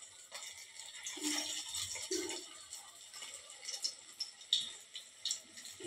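Hot oil sizzling in an aluminium kadai as slices of steamed methi-and-spinach gram-flour roll fry, with sharp crackles and pops that cluster in the second half.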